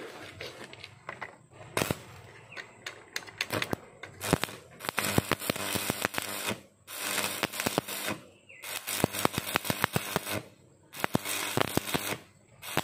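Stick (arc) welding: the electrode's arc crackles and sputters in several runs of one to two seconds, with short pauses between them.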